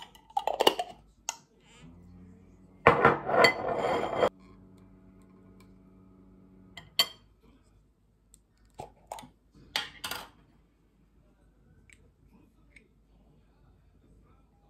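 Metal spoon clinking and scraping on glass jam jars and a jar lid being twisted, in scattered short clicks and scrapes, with one louder rasping scrape lasting about a second and a half early on. A low steady hum runs underneath for about five seconds in the first half, then stops.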